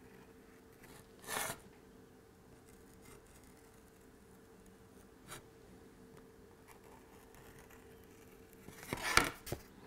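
Handling noise from a plastic glue bottle and an MDF kit panel during gluing. There is a short scrape about a second in, a tiny click halfway through, and a louder rustle with a few clicks near the end, over a faint steady hum.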